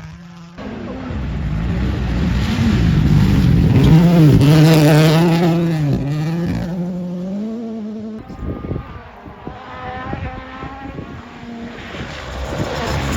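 Rally car passing at speed. The engine note climbs and dips through several quick gear changes, loudest about four to six seconds in, then falls away about eight seconds in into a rapid crackling as it fades. Engine sound rises again near the end.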